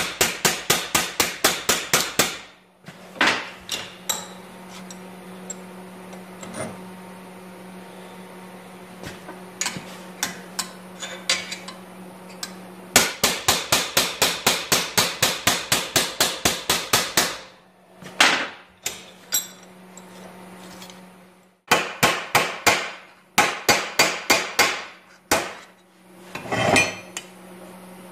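Hand hammer striking a flat steel bar set on the edge of sheet steel clamped in a bench vise, in quick runs of about five or six blows a second with scattered lighter taps between, stepping down the edge of a rust-repair patch panel. A steady low hum runs underneath.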